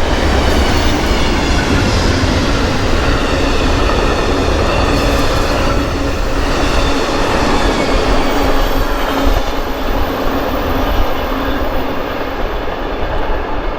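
Amtrak Southwest Chief passenger train passing on the center track: a loud, steady rumble of wheels on rail. The highest part of the sound thins out a little past halfway as the train moves on.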